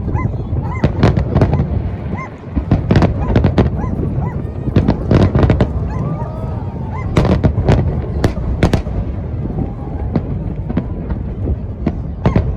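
Fireworks display: shells bursting in rapid, overlapping salvos of sharp bangs over a continuous low rumble, with short pitched whistling tones between the bangs.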